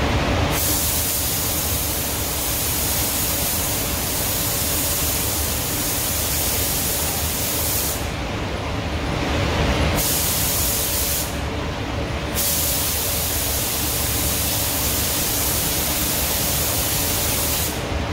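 Compressed-air paint spray gun hissing in long passes, cutting off twice for a second or two when the trigger is released, over the steady low rumble of the paint booth's ventilation.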